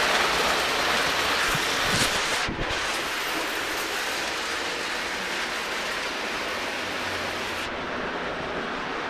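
O gauge three-rail toy trains running: a steady rushing rumble of wheels on the track, with a few sharp clicks about two seconds in.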